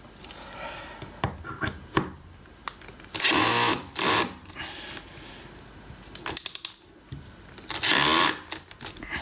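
Electric screwdriver driving a hex screw into a door hinge in two short runs of about a second each, after a few light clicks. The screw won't go further and seems stuck on something, which is taken to be the door's metal frame behind the hole.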